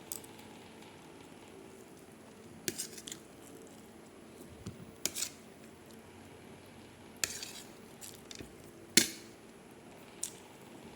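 Cutlery clinking against a plate or bowl while eating, about six separate clinks with the loudest about nine seconds in, over a faint steady hum.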